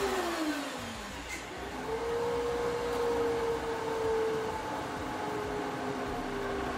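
DeWalt DW735X benchtop thickness planer running together with the dust collector it switches on. Their motors whine, dipping in pitch over the first second or so, then rising about two seconds in to a steady pitch that holds.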